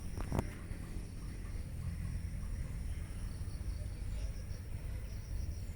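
Outdoor rural ambience: insects keep up a steady high-pitched drone over a low rumble, with a quick run of chirps about four seconds in and a couple of clicks near the start.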